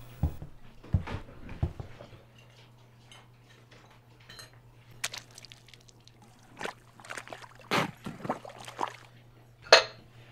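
Kitchen and tableware clatter: a few knocks in the first two seconds, then a metal fork clinking and scraping on a ceramic plate, the loudest clink near the end. A steady low hum runs underneath.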